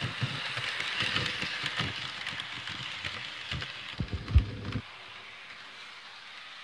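Bachmann HO scale model diesel locomotive running fast along sectional track: a steady whirring rattle of its motor and wheels, with irregular knocks through the first five seconds, the loudest about four and a half seconds in, then a steadier, quieter whirr.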